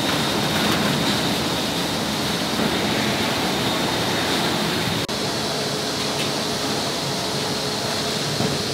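Water pouring from a row of nozzles and splashing into a tofu cooling tank: a steady rush of falling water. About five seconds in, it cuts off abruptly into a steadier machine hum with a faint whine.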